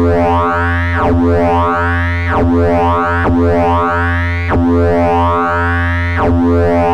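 Eurorack modular synthesizer tone from an analog oscillator with a wavefolder. Its pitch holds steady while an envelope repeatedly sweeps its brightness, restarting about every second or so. The spacing and shape of the sweeps shift as the envelope's knobs are turned.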